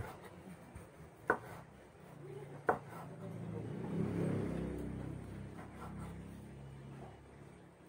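Large kitchen knife chopping grilled squid on a wooden cutting board: a few sharp knocks, the two loudest about a second and a half apart. A low hum swells up a couple of seconds in and fades out towards the end.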